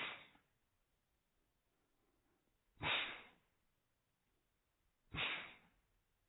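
A cat sneezing three times: short, sudden sneezes, one right at the start, one about three seconds in and one about five seconds in.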